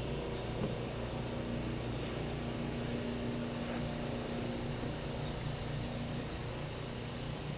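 A steady engine hum with a low drone that holds even throughout.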